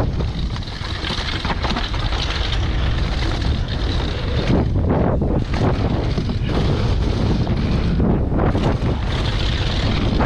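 Mountain bike riding fast downhill on a rough dirt trail: wind buffets the microphone over a steady rumble of tyres on dirt, with frequent clattering and rattling from the bike, which the rider traced to a loose cassette.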